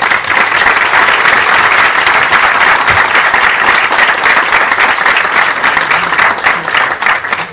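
Audience applauding: dense, steady clapping from a full hall that thins out near the end.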